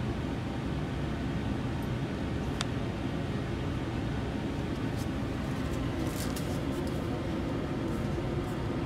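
Steady rushing noise of laboratory ventilation, with a few faint light clicks.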